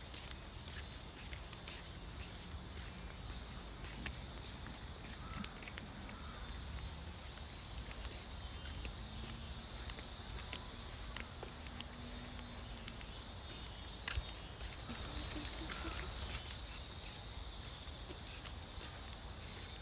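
Insects chirping in short repeated pulses over a rice-field evening ambience, with scattered light clicks of footsteps on a dirt path and a sharper tick about fourteen seconds in.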